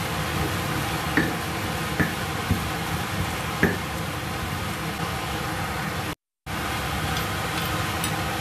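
Stone pestle grinding and mashing chili sambal in a stone mortar, with a few sharp stone-on-stone knocks in the first four seconds, over a steady background hiss. The sound cuts out briefly about six seconds in.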